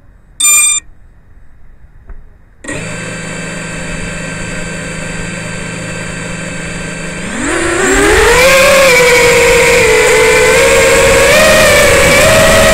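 Racing drone's brushless motors and propellers, recorded by the camera mounted on the drone: a short beep, then the motors spin up to a steady idle hum, and about seven seconds in the throttle rises into a loud whine for takeoff, its pitch wavering up and down as the drone flies.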